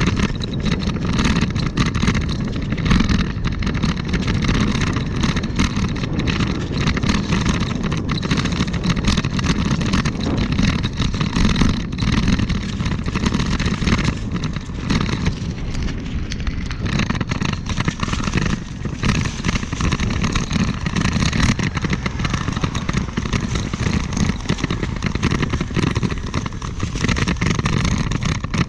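Wind rushing and buffeting over a handlebar-mounted camera's microphone while riding, with a steady low rumble from the wheels on the pavement.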